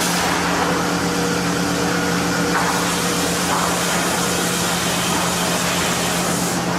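Sawmill machinery running steadily: a constant loud mechanical noise with a steady hum underneath.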